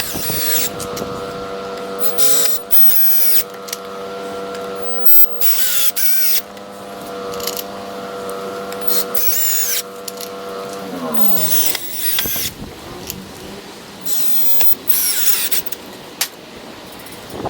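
Electric drill motor running at a steady pitch, with repeated short bursts of high hissing noise. About 11 seconds in, the trigger is released and the motor winds down, falling in pitch. A few more short hissing bursts follow.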